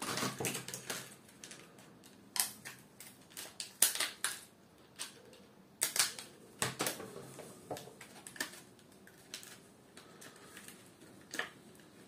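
A run of irregular clicks and crackles of plastic being handled, as a laptop RAM module's clear plastic clamshell pack is opened, the sharpest about four and six seconds in.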